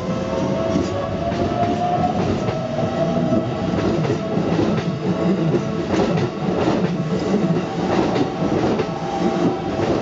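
Keikyu 600 series eight-car electric train, two four-car sets coupled, passing close by at speed, its wheels clattering over the rail joints in a run of regular clicks. The sound drops off right at the end as the last car clears.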